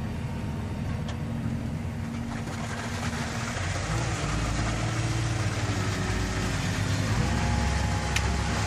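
Engine running steadily with a low hum, its pitch shifting a little about four seconds in and again about seven seconds in.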